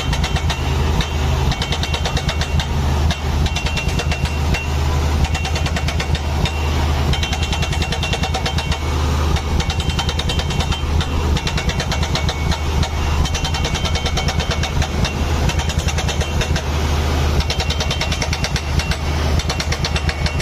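Piling drill rig at work: its engine runs with a steady low hum under a fast, continuous rattling clatter as the drill works into the ground.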